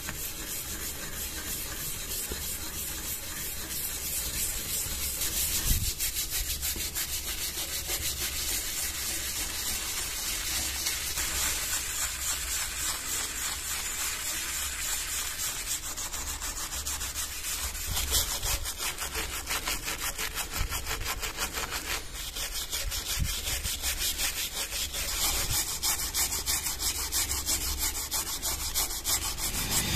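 Small wire brush scrubbing rust off a steel knife blade and handle in soapy foam, in rapid back-and-forth strokes.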